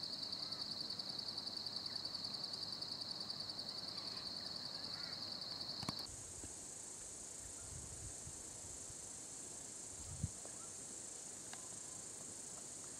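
Evening insect chorus: a fast, pulsing high-pitched trill that switches abruptly about halfway through to a higher, steadier insect hiss.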